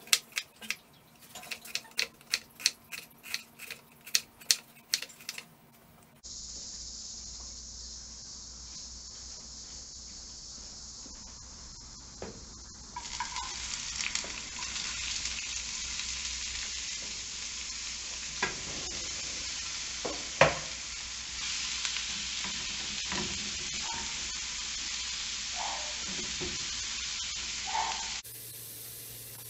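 A knife chopping onion on a wooden cutting board, a run of sharp cuts about two to three a second for the first six seconds. Later, from about halfway through, diced onion sizzles in hot oil in a frying pan, stirred with a wooden spatula that gives a few knocks.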